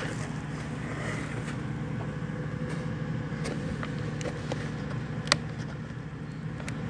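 A steady low mechanical hum, engine-like, with a few light clicks and one sharp click about five seconds in.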